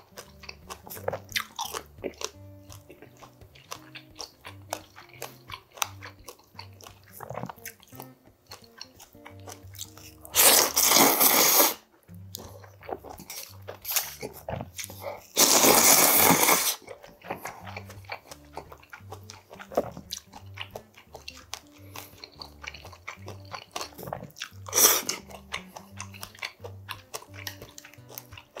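Close-up eating sounds of a man eating seafood udon: chewing and small clicks of chopsticks throughout, with two long, loud slurps of udon noodles about ten and fifteen seconds in and a shorter one near the end.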